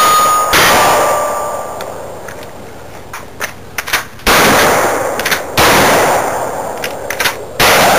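Gunshots on a cowboy action shooting range: a shot with a steel target ringing after it about half a second in, then three more shots at the shotgun knock-down targets about one to two seconds apart. Short metallic clicks of the gun being worked come between the later shots.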